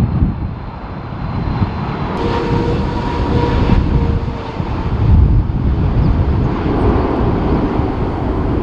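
A jet airliner's engines are heard on approach under strong wind buffeting the microphone. The wind rumble is the loudest part throughout, and a faint steady engine whine sits over it from about two to four and a half seconds in.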